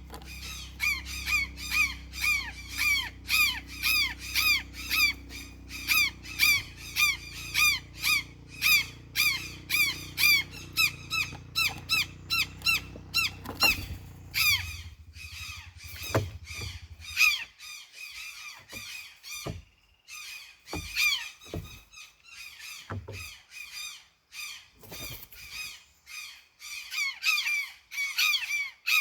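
Birds calling: sharp, pitched squawking calls repeated quickly and evenly, about two to three a second, for roughly the first half, then coming in scattered bursts. A low steady hum underneath stops about halfway through.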